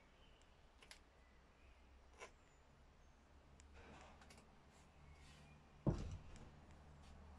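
Workshop handling noise: a few faint clicks and light knocks as chainsaw parts are handled on a workbench, then one much louder thud about six seconds in as the chainsaw body is set down on the bench. A low steady hum runs underneath.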